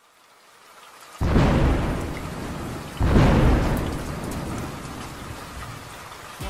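Thunderstorm sound effect: rain hiss fading in, then two thunderclaps about two seconds apart, each rumbling away slowly.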